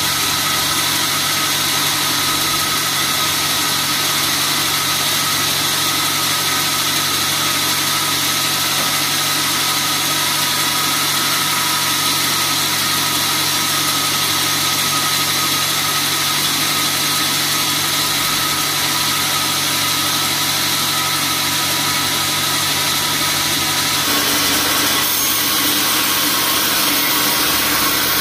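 Band sawmill running steadily without cutting, a steady machine hum under a high hiss. About 24 seconds in the sound changes abruptly, the low hum dropping back and the hiss getting a little louder.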